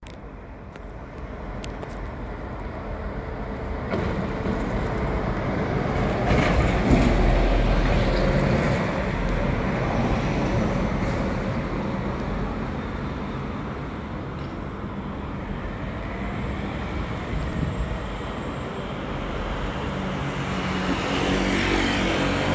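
Street traffic: double-decker buses and cars driving past with their engines running. The sound swells loudest about seven seconds in as a vehicle passes close, and builds again near the end.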